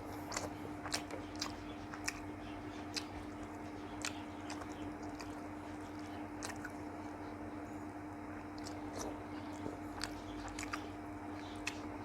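Close-miked chewing of food, here a fish course, with irregular sharp wet mouth clicks and smacks, over a steady low electrical hum.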